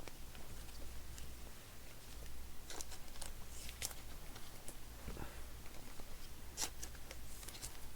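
Trading cards and their packaging being handled at a table: scattered light clicks, slides and rustles over a steady low hum.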